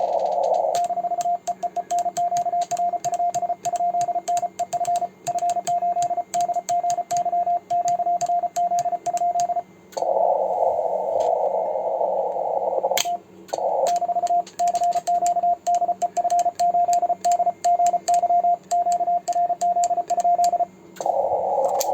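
Morse code (CW) sent with a homemade 3D-printed paddle: a radio's single-pitch sidetone beeping in rapid dots and dashes, with light clicks from the paddle contacts. About ten seconds in, and again near the end, the beeping stops and the receiver's hiss of band noise comes through.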